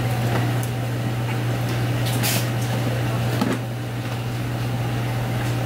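Steady low mechanical hum, with a couple of brief soft hissing noises in the middle.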